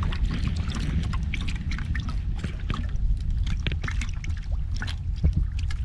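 Seawater trickling and dripping around a small outrigger boat as a wet handline is hauled in hand over hand, with many small irregular splashes and ticks over a steady low rumble.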